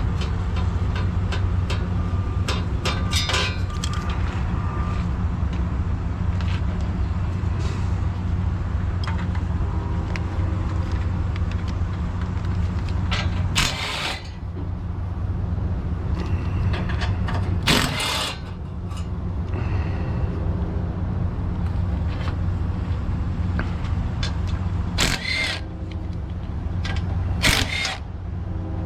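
A steady low rumble of an idling engine, with scattered metallic clicks of hand tools on bolts and a few short, sharp hissing bursts.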